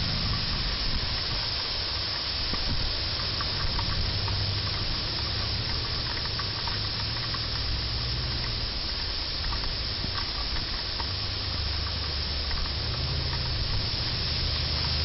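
Heavy thunderstorm rain pouring down, a steady hiss with scattered faint ticks of drops, over a low rumble that swells and fades now and then.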